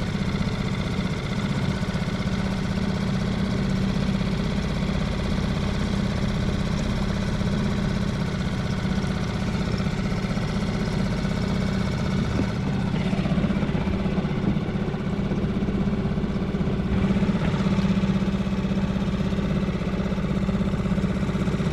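Small boat outboard motor running steadily.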